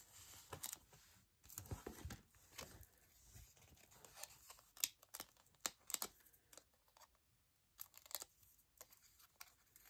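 Faint paper rustling and crinkling, with scattered short crackles and light taps, as card stock and paper pieces are handled.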